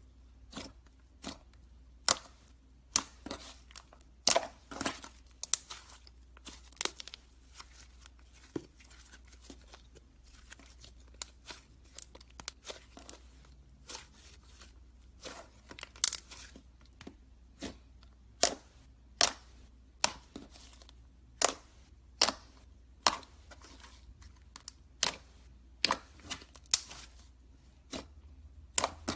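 Slime being squeezed and poked by hand: a run of sharp, irregular clicks and pops, about one or two a second.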